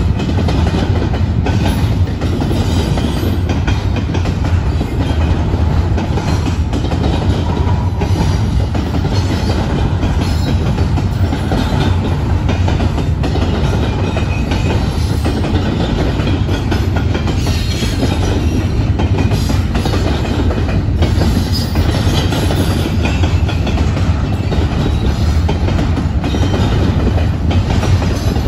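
BNSF double-stack container train cars rolling past at steady speed: a continuous heavy rumble of steel wheels on rail with scattered wheel clicks.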